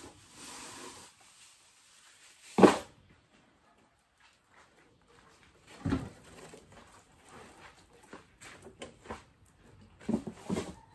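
Hand tools clanking in a metal toolbox as they are rummaged through: one loud clank about two and a half seconds in, another near six seconds, and a quick cluster of knocks near the end.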